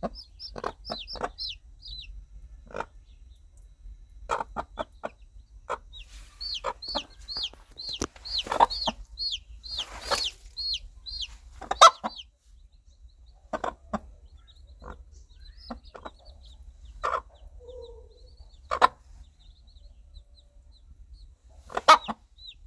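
Mother hen calling her chicks with short, spaced clucks, while the chicks answer in runs of high, falling peeps, about three a second. The loudest clucks come near the middle and near the end.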